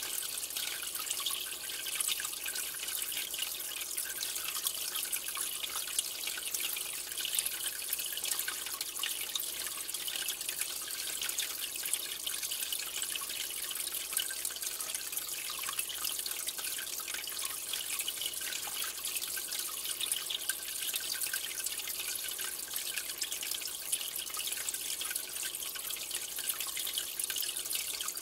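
Aquarium water trickling and bubbling steadily, a continuous patter of fine drips and splashes at the surface.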